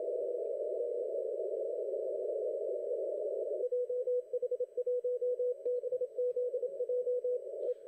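Morse code (CW) reception on a shortwave transceiver on the 30-metre band, heard through a narrow CW filter. At first it is a dense hiss of band noise and crowded signals. About three and a half seconds in, a single steady-pitched Morse tone stands out, keying dots and dashes.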